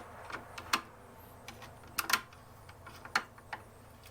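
Flathead screwdriver tightening the ground wire's terminal screw in a breaker panel: a handful of sharp metal clicks and ticks, spaced irregularly.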